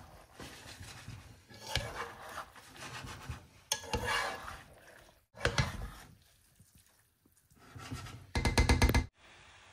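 Spatula scraping and stirring through layered biryani rice in a non-stick pot, in several separate bouts. The loudest is a quick run of rapid scrapes near the end.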